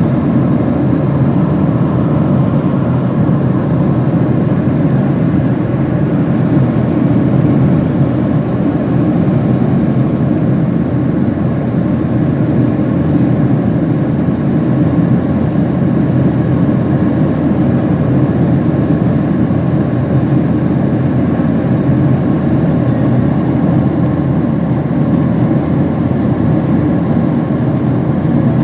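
Passenger plane's engines and airflow heard from inside the cabin: a loud, steady low rumble that holds level throughout.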